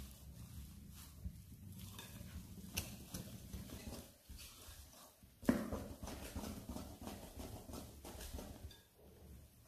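Wire whisk beating thick cake batter by hand in a glass bowl: rapid, uneven clicking and tapping of the wires against the glass, with one louder knock about halfway through.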